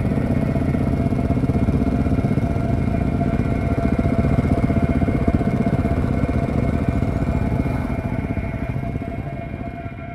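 Single-cylinder supermoto engine running at low speed, fading over the last couple of seconds.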